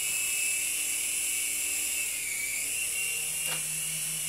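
JXD 340 toy coaxial helicopter in flight on 3D-printed rotor blades: its small electric motors and spinning blades make a steady high-pitched whine that wavers slightly in pitch. A single short click comes about three and a half seconds in.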